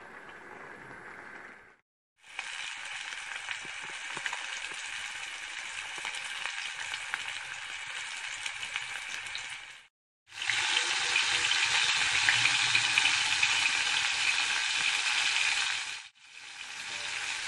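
Food sizzling and crackling in hot oil in a pan, heard in three stretches with brief silent breaks between them; the loudest stretch comes in the second half.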